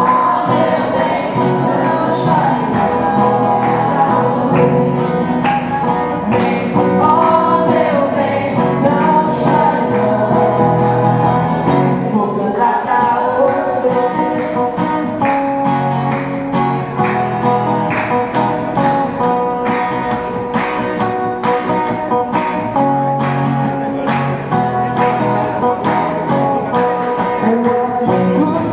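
Music: a song with guitar and a singing voice over a steady beat.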